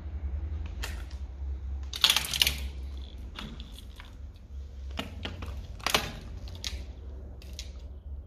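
Footsteps crunching over broken plaster and rubble on a concrete floor: irregular crunches and clicks, loudest about two seconds in and again around six seconds, over a steady low rumble.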